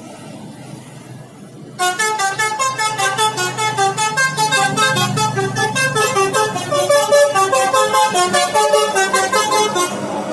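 A bus's basuri musical horn playing a fast tune of short, pulsed notes, about five a second, stepping up and down in pitch. It starts abruptly about two seconds in and stops near the end, over the low rumble of the engine.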